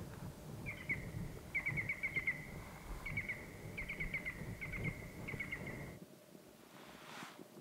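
A high, steady trilling call from a wild animal, with quick runs of four to six chirps laid over it roughly every second, above a low background rumble. It stops suddenly about six seconds in, leaving a quieter background.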